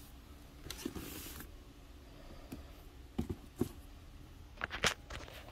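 Handling noise as a sneaker is turned over on its cardboard shoebox: a brief rustle about a second in, two soft knocks past the middle, and sharper clicks near the end, the loudest.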